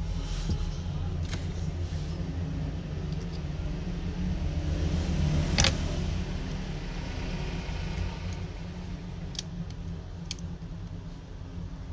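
Steady low rumble of background noise, with a few short, sharp clicks and taps from tweezers and small phone parts being handled.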